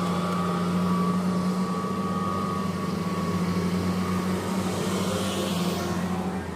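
A truck engine running steadily at an even pitch.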